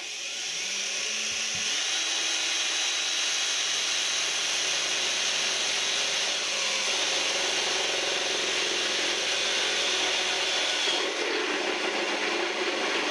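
Yellow cordless drill boring a hole through the thin metal side of a camping gas stove, spinning up at the start and then running steadily under load. The sound changes about eleven seconds in.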